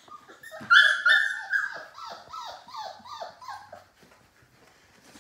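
Labrador puppy yipping and whining in a quick run of about ten high calls, each sliding down in pitch. The first two are the loudest, and the calls stop about four seconds in.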